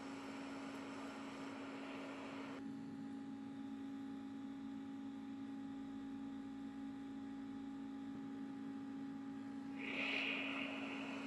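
Steady electrical hum from repair-bench equipment, with a hiss over it that drops away suddenly about two and a half seconds in and swells up again near the end.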